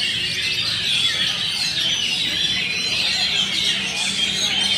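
Oriental magpie-robin (kacer) singing a fast, unbroken stream of varied whistles, trills and chattering notes, the bird running through its learned repertoire of copied calls.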